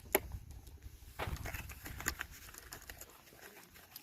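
Light clicks and knocks of shotgun shells and ammunition boxes being handled and sorted, a sharper click just after the start and a few smaller ones about a second and two seconds in.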